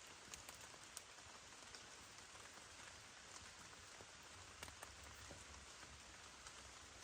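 Steady rain falling, a soft even hiss with scattered sharp taps of single drops.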